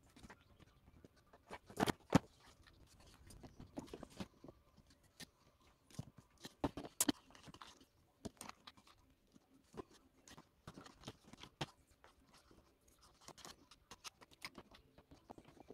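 Miniature dollhouse furniture being handled and set in place inside a cardboard dollhouse: scattered light taps, clicks and knocks at irregular times, the loudest a couple of seconds in and again about seven seconds in.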